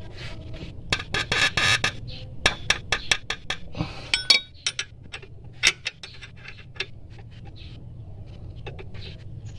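Metal clicks and clinks of a wrench tightening the alternator's belt-adjustment bolt. There is a quick run of clicks about a second in, then scattered single clicks, over a steady low hum.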